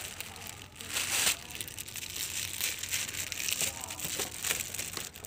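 Crinkling, rustling noise close to the microphone, loudest about a second in.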